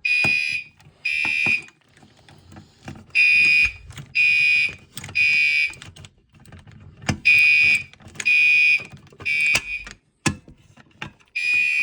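Fire alarm sounding in the three-pulse temporal evacuation pattern: three short buzzing blasts about a second apart, then a pause of about a second and a half, repeating. The system is in alarm, set off by a pull station under test.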